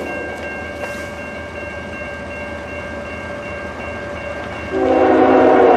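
Diesel freight locomotive approaching with a steady rumble, then its air horn starts sounding a loud chord about three-quarters of the way through and holds past the end.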